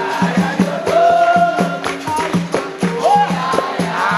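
Capoeira roda music: berimbau bows playing a repeating two-note rhythm, with caxixi shaker, pandeiro and hand claps keeping time under singing.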